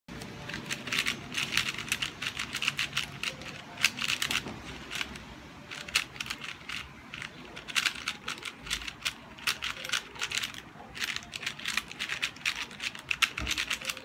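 QiYi QiYuan 4x4 speedcube's plastic layers clicking and clacking as they are turned rapidly, in quick flurries of turns with brief pauses between.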